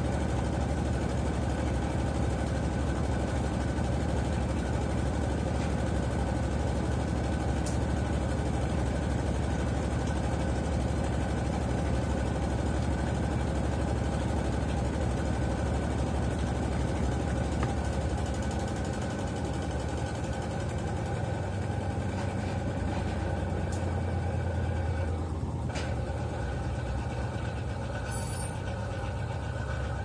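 Consul CWE13AB 13 kg top-load washing machine spinning its basket in the spin stage: a steady motor hum with a low drone. The hum shifts and gets a little quieter about two-thirds of the way through.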